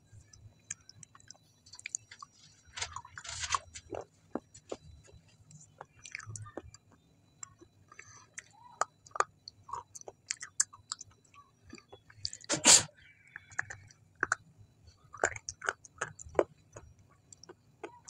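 A person chewing food with the mouth closed, close to the microphone: many short wet mouth clicks and smacks at an uneven pace, with one much louder burst of mouth noise about thirteen seconds in.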